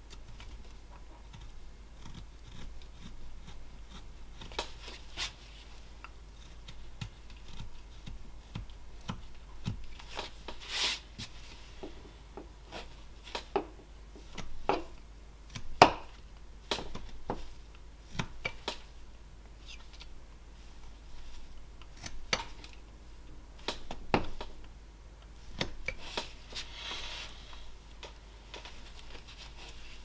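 Flexcut roughing knife paring a block of basswood: irregular short cuts and snaps as chips come away, with a couple of longer scraping slices. The sharpest snap comes about halfway through.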